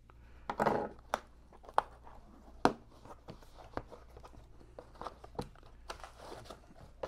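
A cardboard shipping box and an inner paper carton being opened by hand: several sharp clicks and knocks, the loudest in the first three seconds, among cardboard and paper rustling.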